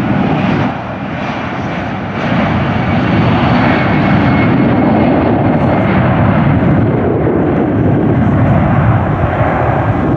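Jet engines of a Delta Boeing 757 rolling on the runway, a loud, steady roar that dips briefly just under a second in and then grows louder about two seconds in.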